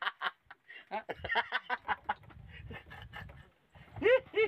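A man laughing in quick bursts, then two or three loud, high whoops that rise and fall in pitch near the end. In the middle there is a stretch of low rumbling noise.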